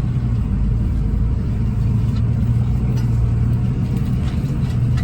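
Vehicle engine running steadily: a low, even drone with no change in speed.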